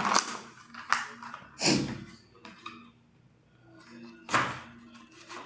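A paper journal and drawing materials being handled: several short rustles and knocks, the loudest about a second and a half in and again about four seconds in, over a faint steady hum.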